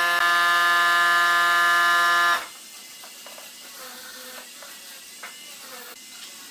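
A steady electronic buzzing tone with many overtones, held for about two and a half seconds and then cut off abruptly. Afterwards only faint room noise remains, with a few light clicks.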